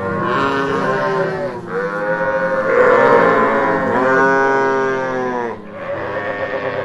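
Livestock calling: a run of about five long, drawn-out calls from several animals, some overlapping, loudest around the middle.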